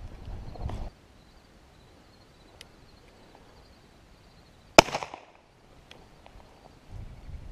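A single shotgun shot about five seconds in: one sharp blast with a short echo trailing off. Before it comes a brief rustle of movement, and low wind on the microphone near the end.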